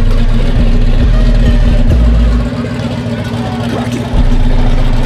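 V8 engine of an Oldsmobile Cutlass 442 rumbling loudly as the car rolls slowly past at low speed, with crowd voices, easing off briefly in the middle.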